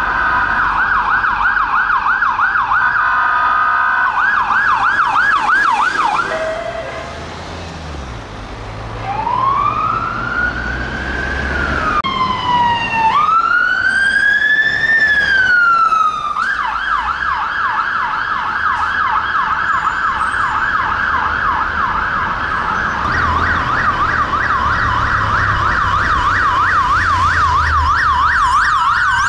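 Electronic sirens of emergency vehicles on blue lights: a fast yelp, then slow rising-and-falling wails from about nine seconds in, with two sirens sounding together for a few seconds, then a fast yelp again from about sixteen seconds in. Traffic and engine rumble sit underneath.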